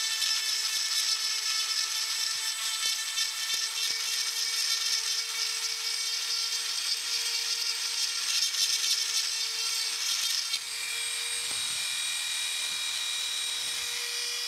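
Flexible-shaft die grinder with a small burr cutting an oil groove into a metal planer's cast-iron way: a steady high motor whine under a gritty grinding hiss. About ten seconds in the burr comes off the metal and the grinder runs free, leaving only the whine.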